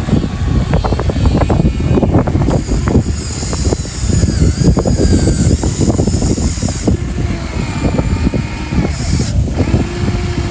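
Radio-controlled model excavator working, a steady mechanical rumble with many small knocks and crackles. A high whine from its hydraulic pump comes in for a few seconds and again briefly near the end.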